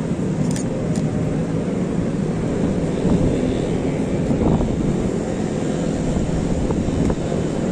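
Steady, loud low rumble of wind buffeting the microphone on an exposed rooftop. There are two short clicks about half a second and a second in.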